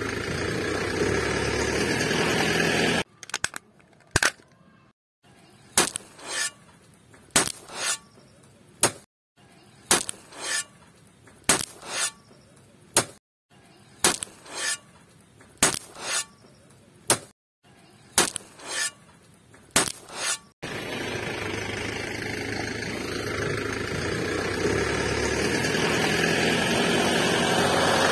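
A small metal shovel scooping sand and tipping it into a toy truck's bed: a sharp clink and a short scrape about once a second, for some seventeen seconds. Before and after the loading, a steady engine-like running noise as the miniature truck drives.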